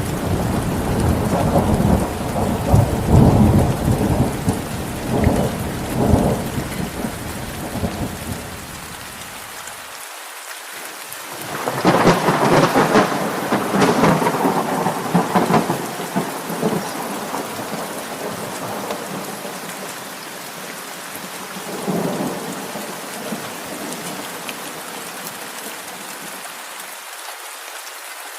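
Steady rain falling with rolling thunder: a long low rumble that dies away over the first several seconds, a louder, sharper thunderclap about twelve seconds in that rumbles on for a few seconds, and a smaller rumble a little past twenty seconds.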